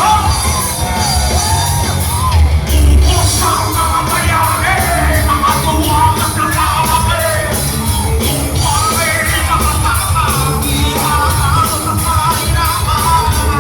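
Live rock band playing: a male singer howls over lead guitar, bass and drums, with cymbals struck in a steady beat.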